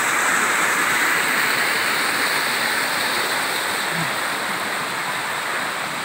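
Small waterfall cascading over rocks: a steady rush of white water with no break, easing slightly near the end.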